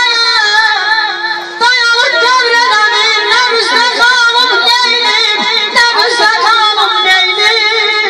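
A woman singing through a microphone and PA, her voice trilling and wavering up and down in pitch, with a brief break about a second and a half in.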